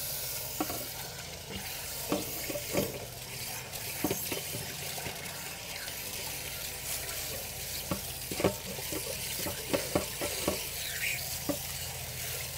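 Water from a garden-hose tank flush wand spraying inside an RV water heater tank and gushing out of the drain opening, a steady hiss broken by irregular sharp clicks and splashes. The flush is washing built-up calcium, lime and old anode-rod debris out of the tank.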